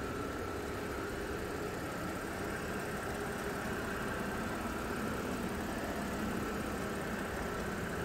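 A 2010 Audi A6 3.0T's supercharged V6 idling steadily.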